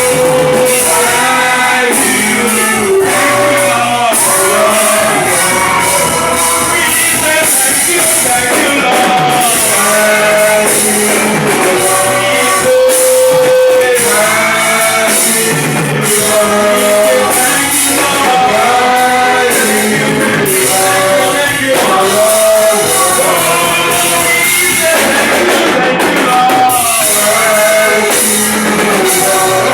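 Live gospel praise music from a church band, with singing over keyboard and drums.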